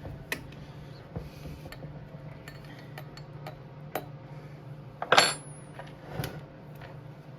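Metal hand tools and loose engine parts clinking and clattering as a two-stroke dirt bike's top end is taken apart: several sharp clinks, the loudest a clatter about five seconds in with a short metallic ring, over a steady low hum.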